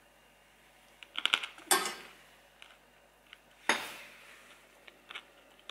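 A metal spoon scraping and clinking against a food container as a mouthful of lasagne is taken: a few quick clicks, then two short scrapes about two seconds apart, and a small clink near the end.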